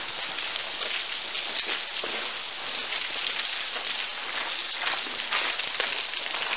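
Water raining down inside a railway tunnel: a steady hiss of falling drops and spatter.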